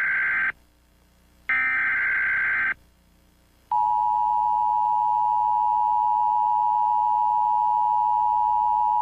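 Emergency Alert System (EAS) broadcast tones: two buzzy digital SAME header data bursts, each about a second long with a second's gap between them. Then, about four seconds in, the steady two-tone EAS attention signal starts and holds.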